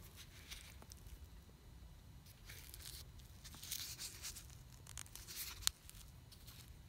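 Faint crinkling of a crumpled old metal denture-cream tube handled in the fingers, in a few short bursts with a sharper crackle near the end.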